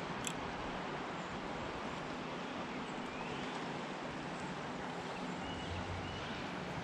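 Steady rush of a shallow river flowing over rocks, with one sharp click a fraction of a second in.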